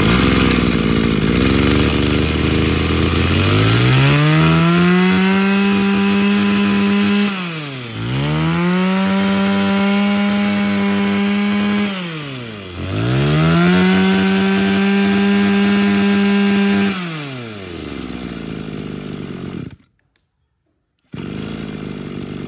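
Mitsubishi TB26 26cc two-stroke brush cutter engine idling, then revved to full throttle three times, each rev held for about three seconds before it drops back to idle. The sound cuts to silence for about a second near the end, then the engine is idling again.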